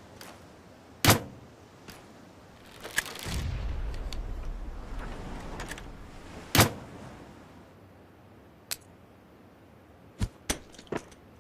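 Pistol gunshots: two loud single shots about five and a half seconds apart, with a low rumble between them and a few quieter sharp clicks near the end.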